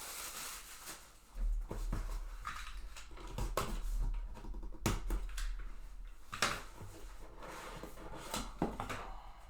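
Trading-card box and packs being handled and opened: irregular taps and clicks of cardboard and wrapper against a table, with rustling between them.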